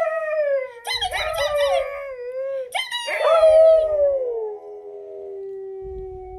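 Siberian huskies howling: a husky on the floor howls along with a howling husky in a video played on a tablet. Several overlapping howls glide up and down, then about three seconds in one long howl falls in pitch and holds steady.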